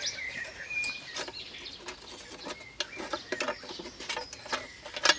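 Irregular light clicks and taps from hands handling the spark plug, its lead and the metal cowling of an old ATCO cylinder mower engine. Faint bird chirps can be heard near the start.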